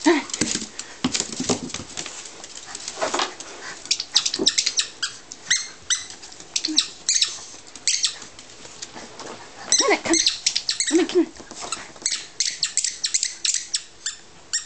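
Small Yorkie-mix dog handling and chewing a tennis ball on a hardwood floor and dog bed: irregular quick clicks and taps from claws, teeth and ball, coming in flurries.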